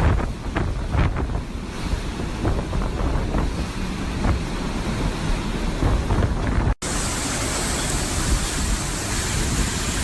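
Hurricane wind roaring and buffeting the microphone in gusts. About seven seconds in the sound drops out for an instant and comes back as a steadier, hissier roar.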